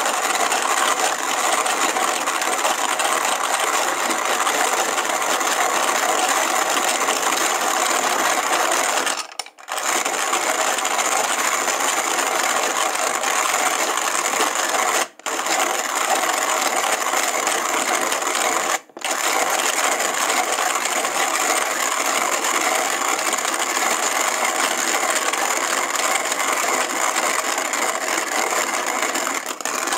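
Hand-cranked coffee mill grinding coffee beans, a steady crunching rattle of the burrs as the crank is turned, broken by three very short stops.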